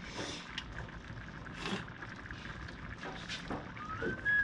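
Soft clicks and taps from an electric range's touch keypad being pressed to set the oven timer, with a faint high tone that rises near the end.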